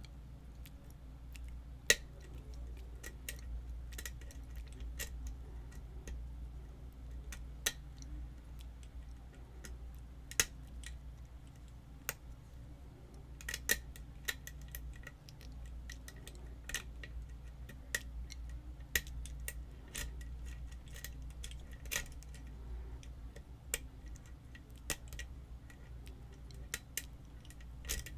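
Small irregular metal clicks and scrapes of a lock pick and tension wrench working the pins of a pin-tumbler challenge lock, with one sharper click about two seconds in. A steady low hum runs underneath.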